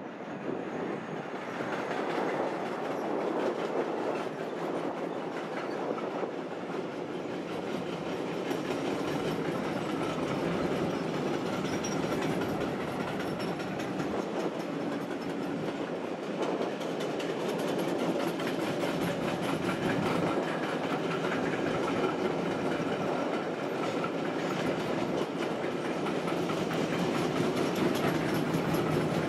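A long freight train of covered wagons rolls past, with a steady rumble and rattle of wagon wheels on the rails. It grows louder over the first couple of seconds and then holds.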